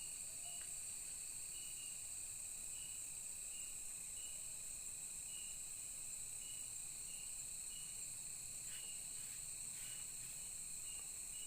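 Insects calling in the forest: a steady high-pitched trill, with another insect chirping in short pulses that repeat every second or so.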